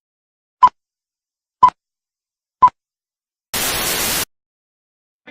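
Three short electronic beeps, one a second, followed by a burst of static hiss lasting under a second that cuts off suddenly.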